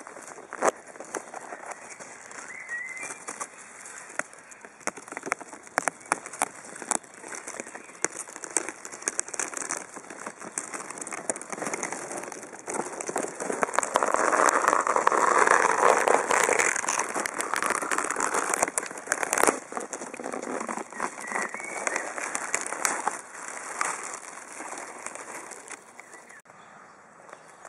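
Experimental soundtrack of crackling noise thick with sharp clicks, swelling denser and louder for about five seconds around the middle.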